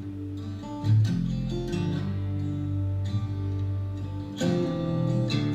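A country-style song's instrumental break, acoustic guitar strumming and picked notes between sung lines, played back through a Class D amplifier module and loudspeaker.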